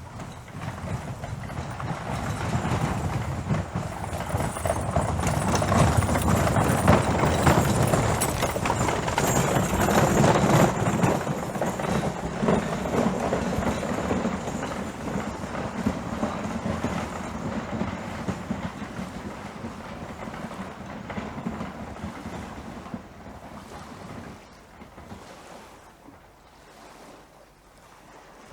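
Horses' hooves clip-clopping in a dense, rapid patter over a low rumble, growing louder for several seconds, then slowly fading away as the horses pass by.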